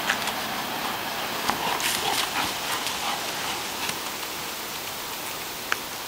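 Yellow Labrador playing with a soccer ball on grass and stone paving: scattered light taps and knocks of the ball and paws over a steady outdoor hiss, with one sharper click near the end.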